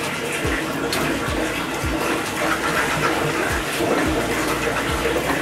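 Thick hot chocolate pudding mixture being stirred with a whisk in a stainless steel pot: a steady wet sloshing, with low soft pops at irregular intervals of about half a second to a second, just off the boil.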